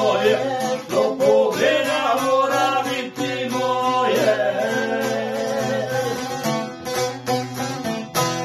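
A man singing a folk song to a strummed long-necked wooden lute; the voice drops out about halfway through and the lute plays on alone.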